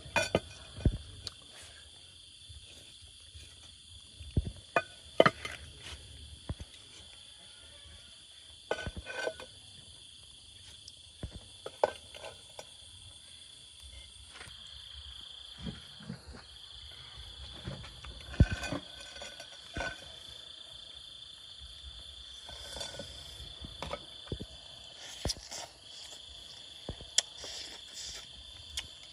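Crickets chirring steadily in a high, even tone, with scattered sharp clinks and knocks of clay dishes being handled and set down in a ceramic bowl.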